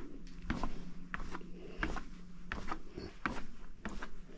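Footsteps going down the fire tower's stairs: a run of sharp knocks, about three a second.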